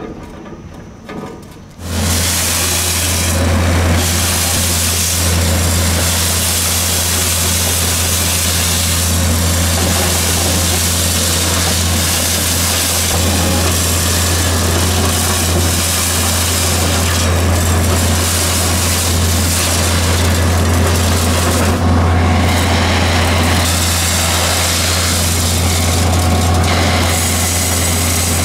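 Wieland VacTrailer S4 industrial vacuum unit, driven by its 44 kW diesel engine, running at working speed: a steady low engine hum under a loud rush of air and gravel being drawn through a wide floor nozzle and suction hose. It starts suddenly about two seconds in, after a few faint clicks.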